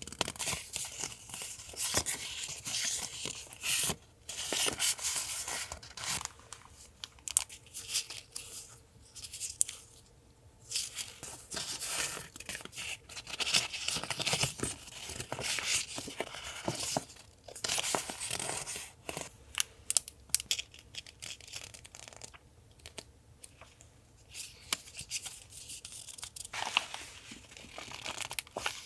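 Paper being handled close up: irregular spurts of rustling, tearing and crinkling, broken by sharp little clicks and taps.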